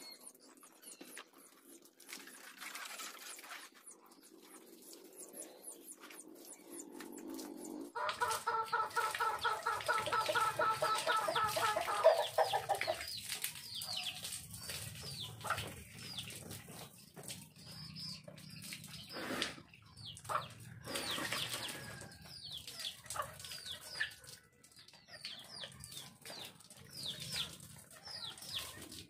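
Chickens clucking and small birds chirping, with a rooster crowing once in a long, several-second call about a third of the way in. Two brief sharp sounds stand out near the middle.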